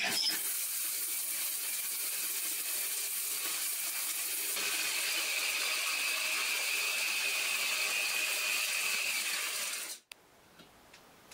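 Homemade grain grinder, a blade spun by an angle grinder motor inside a stainless steel pot, running at full speed and chopping dry corn kernels that rattle against the pot with a steady whine. It runs for about ten seconds and cuts off suddenly.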